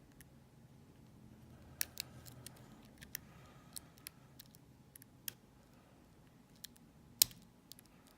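Lock pick and tension wrench working the pins of a small Cisa padlock: irregular small metallic clicks and taps as pins are probed one by one under tension, with one sharper click about seven seconds in.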